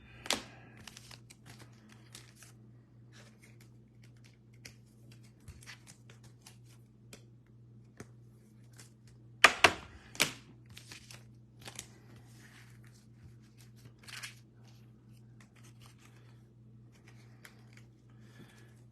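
Trading cards being handled with their plastic sleeves and packaging: scattered crinkling and crackling, with the loudest sharp crackles about nine and a half to ten and a half seconds in and another about fourteen seconds in, over a faint steady low hum.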